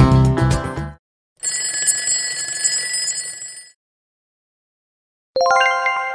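Background music stops about a second in. A bell then rings for about two seconds, a time's-up alarm as the countdown reaches zero. After a short silence, a bright chime strikes near the end and rings on, fading, as the answer is revealed.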